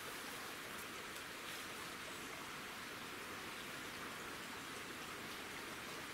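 Steady, even rushing noise of the woodland background, with a few faint light rustles about a second in.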